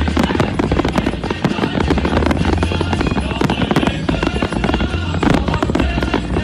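Fireworks display going off: dense, continuous crackling and bangs, many shells bursting in quick succession.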